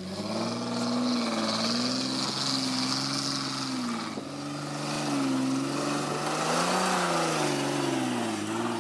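Off-road 4x4's engine revving under load, its pitch rising and falling repeatedly as the throttle is worked, with a hiss over it for about three seconds in the first half.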